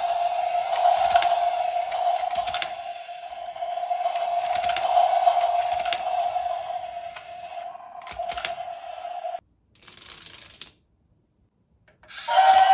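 Toy domino train's small electric motor and gearbox running on a low supply voltage, giving a steady whine, with a plastic click every second or two as a domino is set down. About nine seconds in the sound cuts off, and after a short hiss and a moment of silence the motor starts up again near the end.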